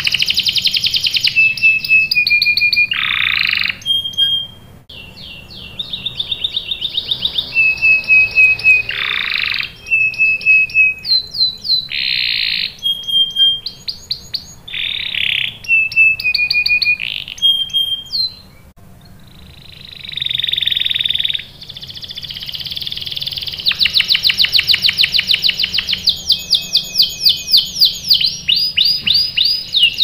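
Domestic canary singing a long song of rapid trills: runs of quickly repeated whistled notes, some rising and some falling, each run changing to a new pattern after a second or two. There are two short lulls, about four seconds in and just before twenty seconds in.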